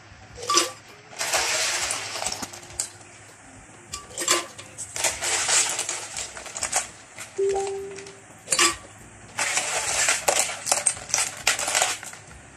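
Ice cubes being spooned from a plastic bowl into a glass blender jar: spells of rattling and scraping as the plastic spoon digs through the cubes, broken by sharp clinks as cubes land against the glass, three times.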